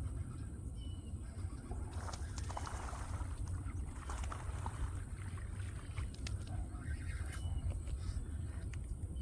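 Outdoor pond-side ambience: a steady low rumble, a steady high hiss, and a bird chirping briefly a few times. Bursts of light clicking and rattling come from about two to four seconds in and again around seven seconds.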